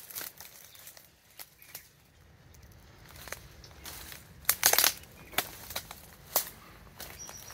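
Footsteps crunching and crackling through dry grass and brush, in irregular steps, with the loudest cluster of crackles a little past halfway.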